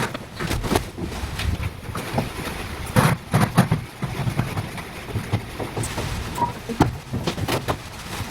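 A run of irregular sharp knocks and clicks over a low rumble, the loudest cluster about three seconds in.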